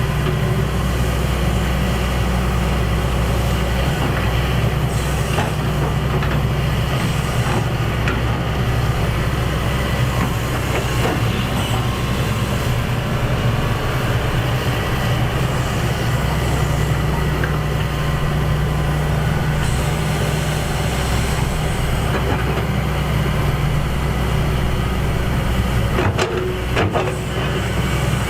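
Excavator's diesel engine running steadily under load, with a few short knocks and clanks from the machine working.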